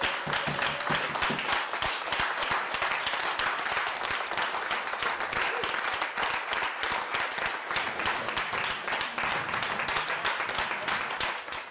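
A roomful of people applauding, many hands clapping steadily together.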